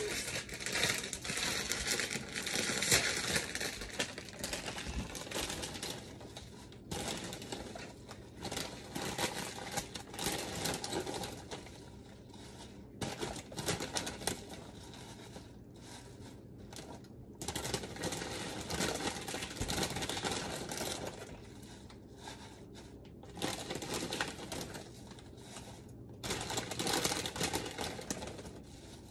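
Plastic bag of fresh spinach crinkling and rustling in repeated bursts of a few seconds as handfuls of leaves are pulled out and dropped into a pot.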